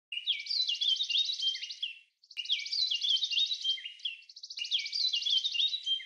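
Songbird song: a phrase of about two seconds, a fast high trill over lower chirping notes, repeated three times in close succession with short gaps.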